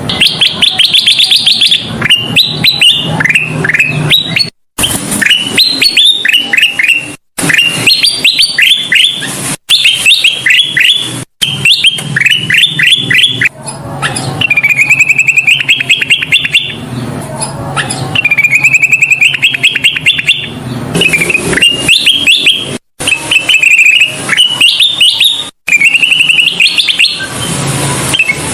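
Kutilang emas bulbul singing continuously, in repeated phrases of rapid chirps that climb in pitch. The phrases are broken by several short, abrupt silent gaps.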